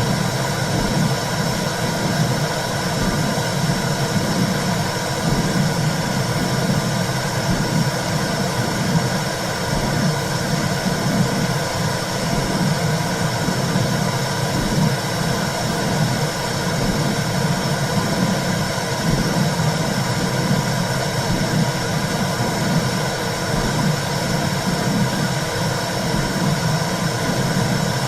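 Womb sound for soothing a baby: a steady low whooshing rumble that swells in a soft, even pulse.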